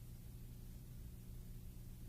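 Faint steady low electrical hum with a soft hiss underneath, unchanging and with no other events: background hum and noise on the soundtrack.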